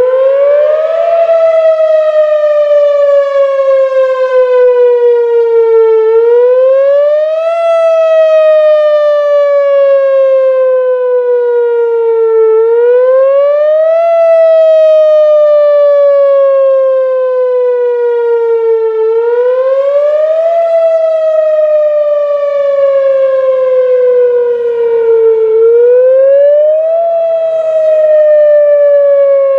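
A loud siren wailing in a repeating cycle: its pitch rises quickly over about a second, then falls slowly over about five seconds, five times over.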